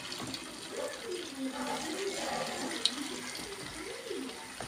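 Coconut fritters frying in hot oil: a steady sizzle, with a sharp click about three seconds in as the wooden spatula hits the pan. A faint voice wavers in the background.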